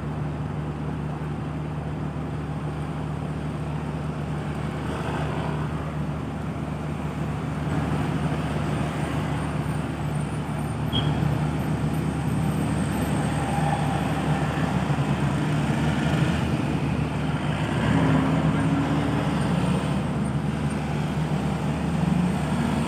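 Large bus engine running amid road traffic noise, a steady low drone that grows somewhat louder about halfway through.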